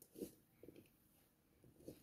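Hands kneading oat-and-flour dumpling dough in a bowl: a few faint, soft squishes, the first the loudest.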